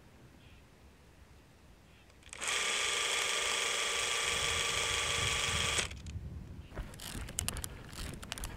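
Krasnogorsk-3 16 mm cine camera's clockwork spring motor running film through the gate for about three and a half seconds, a steady mechanical whirr that starts and stops abruptly. Scattered clicks and rustling follow near the end.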